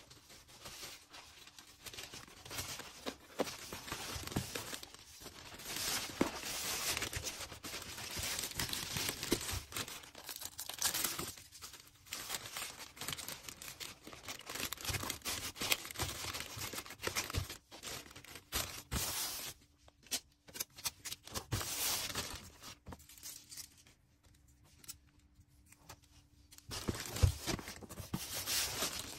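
Packing materials being handled by hand while an order is packed: rustling, crinkling and tearing in bursts, broken by short pauses, with a louder burst near the end.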